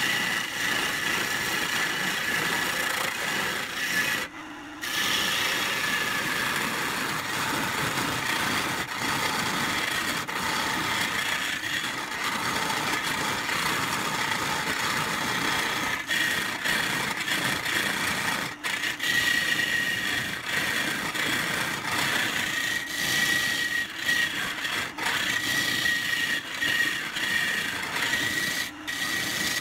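A woodturning lathe spinning a pine vase blank while a hand-held chisel scrapes and cuts the wood: a continuous rasping scrape with a steady high whine underneath. It breaks off briefly about four seconds in.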